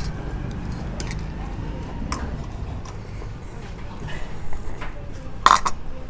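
Spoon and chopsticks clinking against a bowl and pot while eating noodles: a few light clinks, then a louder ringing one near the end, over a steady low background rumble.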